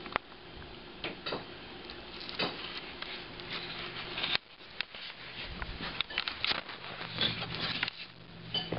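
Irregular light taps, knocks and rubbing as a Jack Russell Terrier puppy scampers about on carpet while a handheld camera is moved around.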